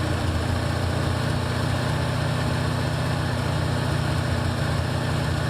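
1984 Ford Mustang engine idling steadily while warming up on its Holley carburetor's choke, with exhaust leaking at the headers.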